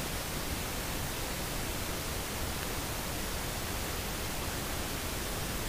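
Steady, even hiss of background noise, with no other sound.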